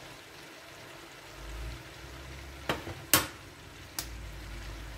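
Vegetables and chicken sizzling faintly in a pot, with three sharp clicks in the second half, the middle one loudest, as a spoon and the soy sauce bottle are set down on the worktop.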